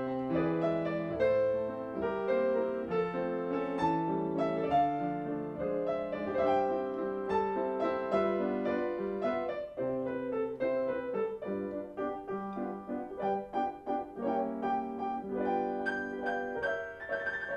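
Piano accompaniment playing a brisk tune of quick, separate notes over chords, with a high note held near the end.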